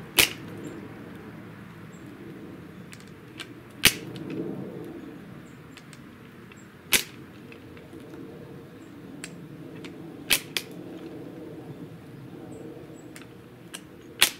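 Lever-action nutcracker crushing nut shells in its steel cylinder: five sharp cracks spaced about three to four seconds apart, with a few smaller clicks of the lever and shell between them.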